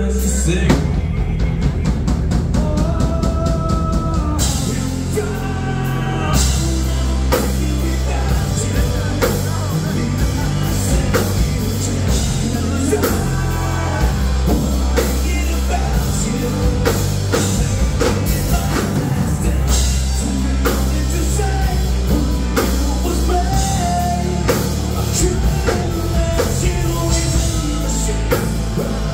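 Rock band playing live: a male singer over electric guitar, bass guitar and a drum kit.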